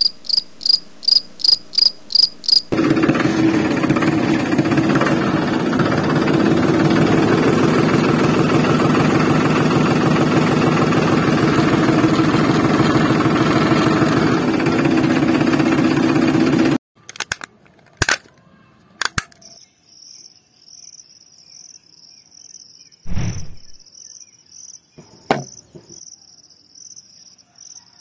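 Crickets chirp in short, evenly spaced pulses until, about three seconds in, a loud, fast, steady mechanical rattle takes over and then stops suddenly at about seventeen seconds. Crickets then chirp steadily again, with a few sharp knocks as small bricks are handled.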